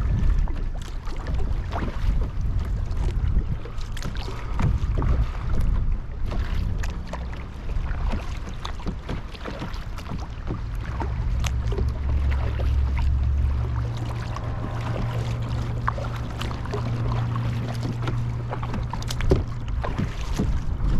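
Water splashing and lapping against a kayak, with scattered small splashes and knocks, over a low wind rumble on the action camera's microphone.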